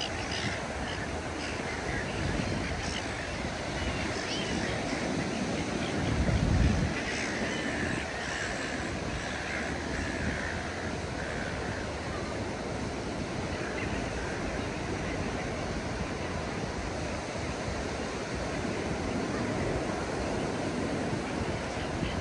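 Ocean surf breaking and washing up a sandy beach, a steady rushing, with a brief low thump about six seconds in.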